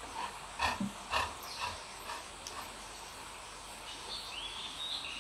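A golden retriever makes a quick cluster of short sounds, four or five in about a second and a half, while its head is combed, followed by a faint high rising sound near the end.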